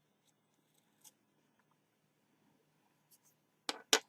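Mostly quiet handling sounds. There is a faint tick about a second in, then two sharp clicks or taps close together near the end, like small hard parts or a tool being set down on a workbench.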